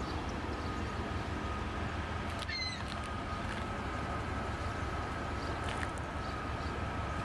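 VIA Rail passenger train's steady low rumble and hiss, with a faint steady whine over it. A short chirp, falling in pitch, cuts through about two and a half seconds in.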